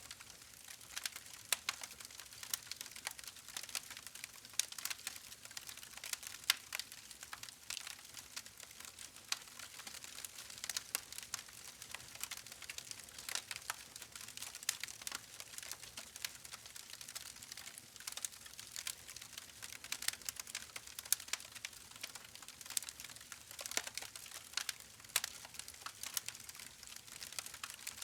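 Wood fire burning with a steady hiss and frequent irregular crackles and pops.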